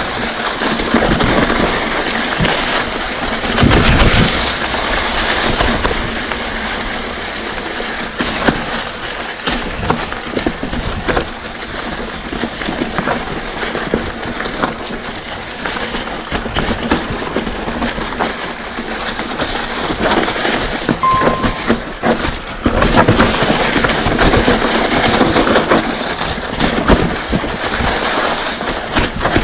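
Mountain bike descending rough, rocky singletrack: tyres rolling and crunching over dirt and stones, with the bike rattling in many sharp clicks and knocks over the bumps.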